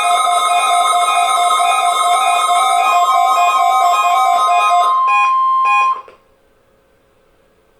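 A group of weather alert radios going off together: several radios' own alarm beeps pulsing at different pitches over the steady 1050 Hz NOAA Weather Radio warning alarm tone. This is the alert signal sent ahead of a Required Weekly Test. The beeps break off about five seconds in, and the tone cuts off suddenly about a second later.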